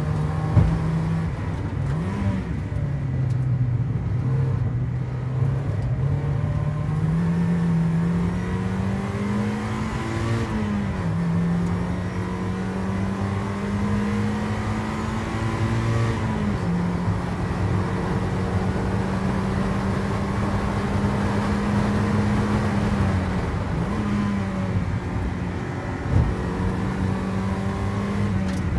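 Mazda MX-5 Mk1 race car's four-cylinder engine heard from inside the cockpit, pulling hard at high revs. Its pitch climbs slowly and drops sharply at upshifts about ten and sixteen seconds in, with a brief dip near the end.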